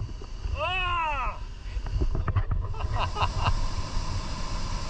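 A person gives one short whooping shout whose pitch rises and then falls, about half a second in. A few brief voice sounds follow around three seconds in, over a steady low rumble.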